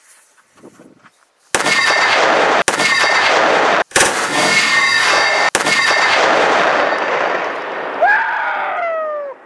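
One-pound black powder charge going off beneath an anvil to launch it: a sudden loud blast about a second and a half in. Its noise carries on for several seconds before fading.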